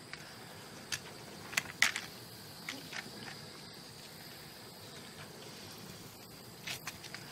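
Faint outdoor ambience with a steady high insect drone, broken by a few soft ticks and taps.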